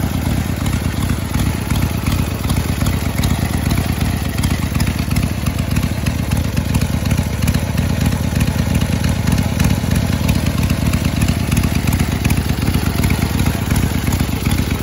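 1979 Harley-Davidson Ironhead Sportster 1000cc V-twin idling steadily and loudly, running on a newly fitted S&S-style copy carburetor.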